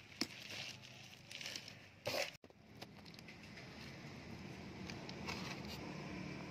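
Composted chicken manure being dropped and scattered onto garden soil around kale seedlings: light crackles and patters, with a louder crumbly rustle about two seconds in, then only a faint steady background.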